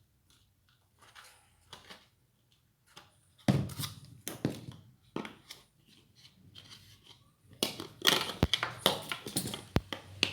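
Ceiling fan parts and their packaging being handled: irregular rustling and knocks that get louder about a third of the way in, with a busy stretch and two sharp clicks near the end.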